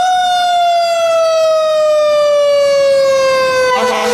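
Fire engine's Federal Q2B mechanical siren winding down: it starts at full pitch and falls slowly and steadily in one long wail. Near the end a second, steady lower tone comes in over it.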